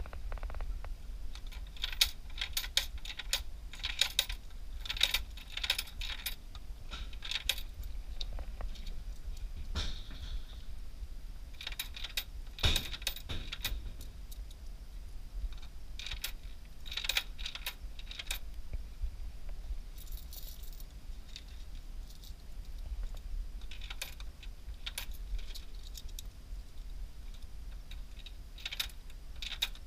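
Irregular clicks, rattles and crinkles of packaged snacks being handled and stocked into a snack vending machine, over a low steady hum.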